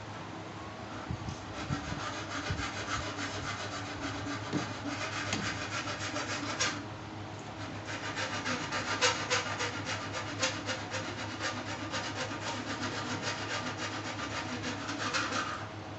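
Pair of Nice telescopic electromechanical gear motors (swing gate operators) running as they drive a double swing gate closed, a steady rattling buzz from their gearing. The sound drops out for about a second a third of the way through, resumes, and cuts off near the end as the leaves shut.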